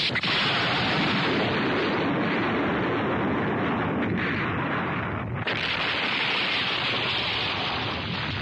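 Anime battle sound effects: a loud, continuous blast-like roar, like explosions and rushing wind, with a brief break about five seconds in.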